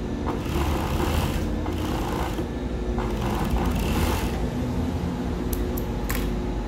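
Siruba industrial sewing machine stitching elastic onto a swimsuit edge: a steady motor hum with runs of stitching that start and stop. There are a few sharp clicks near the end.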